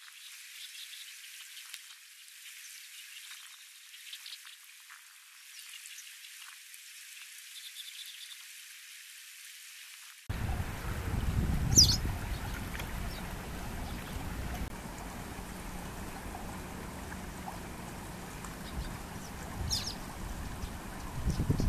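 Shallow water running over stones, starting suddenly about ten seconds in, with two short high chirps about eight seconds apart. Before that there is only faint hiss.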